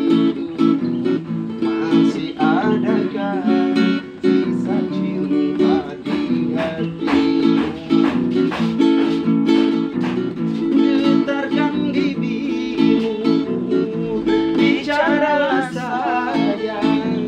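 Acoustic guitar playing a rhythmic chord accompaniment, with a voice starting to sing near the end.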